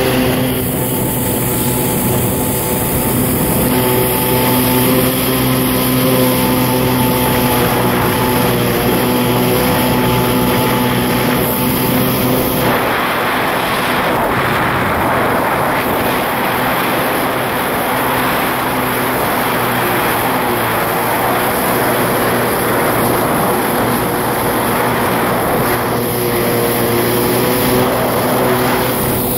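Kawasaki 650SX stand-up jet ski's two-stroke twin engine running at a steady speed, its drone unchanging in pitch. A louder rushing hiss joins it from about halfway through until near the end.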